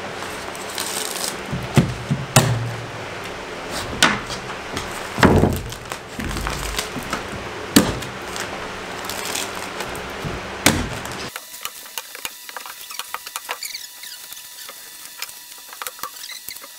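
Hand staple gun driving staples through the paper facing of fiberglass batt insulation into wooden floor joists: about six sharp snaps, one every second or two. About eleven seconds in, the background drops away suddenly and only faint light ticks remain.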